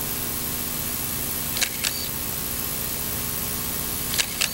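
Single-lens reflex camera shutter firing twice, each firing a quick double click, over a steady background hum.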